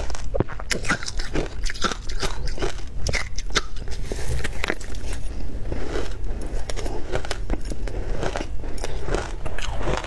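Close-miked crunching and chewing of ice, a dense, unbroken run of sharp crunches as mouthfuls of crushed ice are bitten through.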